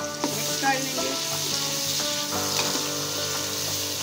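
Diced carrots and green capsicum sizzling steadily in hot oil in a pot while being stirred with a slotted spatula.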